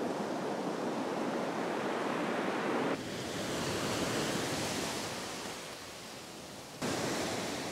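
Ocean surf breaking and washing up a sandy beach, a steady rush of waves. The sound changes abruptly about three seconds in and again near the end.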